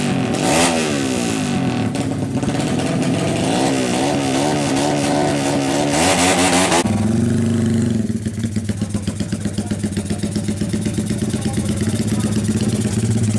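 Honda Tiger single-cylinder four-stroke drag-bike engine, bored up to 300cc and fitted with an open pipe, revved up and down in quick blips. About seven seconds in it drops suddenly to a steady, pulsing idle.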